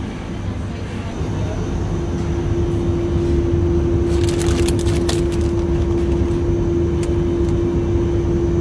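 Steady hum of a refrigerated display shelf, growing louder over the first few seconds, with the crinkle of a plastic sandwich wrapper being handled about four to five seconds in.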